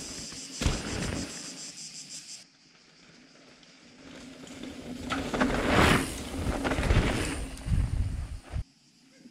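Mountain bike tyres rolling over a rocky trail, with a sharp thump about a second in, against shrill, pulsing insect buzzing that stops abruptly. Then a bike approaches and passes close by, its tyres crunching and clattering over loose stones. This passing sound swells to its loudest in the middle and cuts off suddenly near the end.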